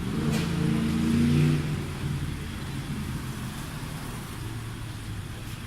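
Mazda 3 engine just started by the remote-start system, running a little higher for about the first second and a half, then settling to a steady idle.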